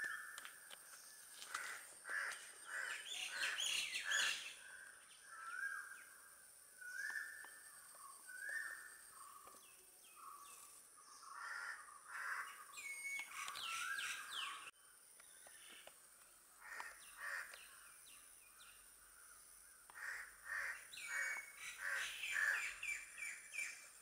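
Several wild birds calling: a repeated call about once a second through the first half, with bursts of quick chirps and twitters around it, over a steady high tone.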